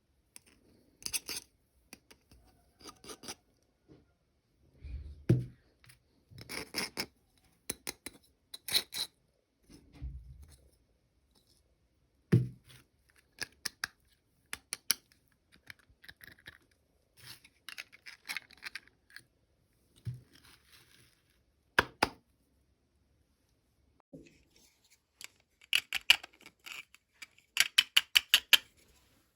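Small toy packaging being handled and cut open: scattered snips, taps and rustles, with a few sharper knocks and a quick run of rapid clicks near the end.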